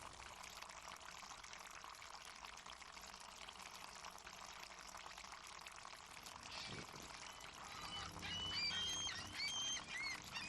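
Harbour water washing steadily, with seagulls calling in a quick cluster of short cries near the end.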